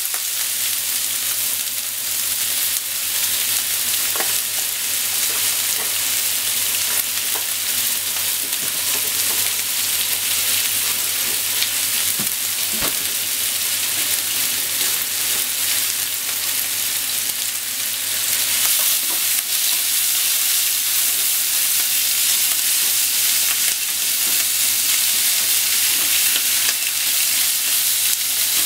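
Thinly sliced pork sizzling in oil in a nonstick frying pan: a steady high hiss, with a few faint clicks of wooden chopsticks against the pan as the meat is turned. The sizzle grows a little louder after about two-thirds of the way through.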